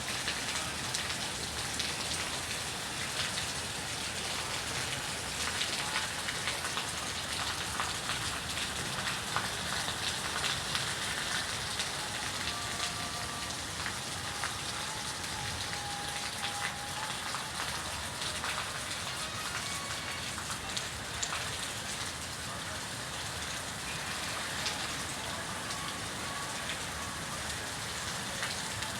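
Steady rain falling: an even hiss made up of many small, quick drop ticks.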